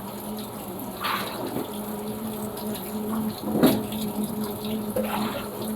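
Panasonic washing machine running its blanket cycle: water running and splashing in the tub over a steady low hum, with the loudest splash a little past the middle.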